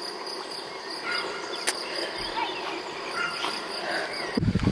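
Crickets trilling steadily in one high, even tone. Near the end a sudden loud low rumble hits the microphone.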